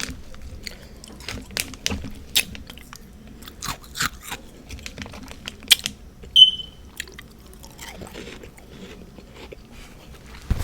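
Close-up crunching and chewing of refrozen freezer frost, in irregular crackling bites. About six seconds in there is a brief high ping.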